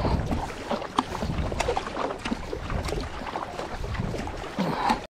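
Paddle strokes from a surfski: blades dipping and pulling through choppy lake water with irregular splashes and drips, over a low rumble of wind on the microphone. The sound cuts out briefly at the very end.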